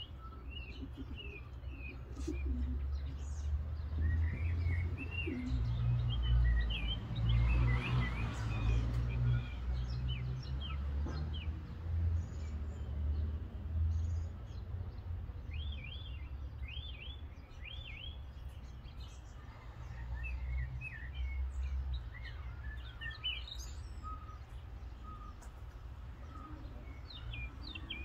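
Small songbirds chirping and twittering, many short high calls throughout, over a low buffeting rumble of wind on the microphone that gusts hardest about a quarter of the way in.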